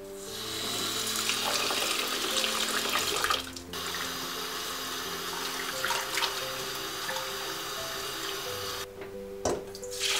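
Rice being rinsed in a rice cooker's inner pot: water running in and hands swishing the grains, with the milky rinse water poured into a stainless steel bowl near the end. The water sound breaks off briefly twice, and soft background music plays throughout.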